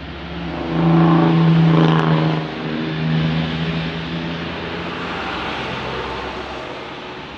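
A passing motor vehicle's engine hum: it swells about a second in, holds for a couple of seconds, then slowly fades away.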